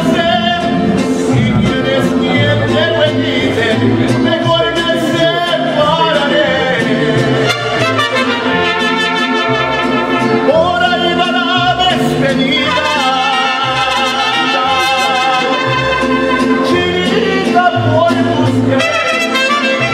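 Live mariachi band playing a song: violins, trumpets, guitarrón, vihuela and guitar together, with a male voice singing.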